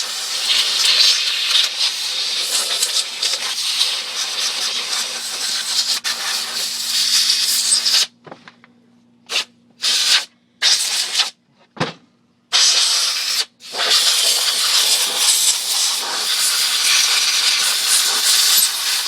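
Compressed-air blowgun blasting grime out of a disassembled chainsaw: a long steady hiss, then several short blasts with gaps about halfway through, then a steady hiss again.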